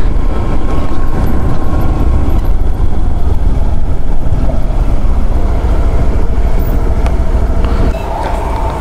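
Wind noise on the microphone of a moving scooter, with road noise heavy in the low end. Near the end it eases as the scooter slows, and a faint steady whine comes in.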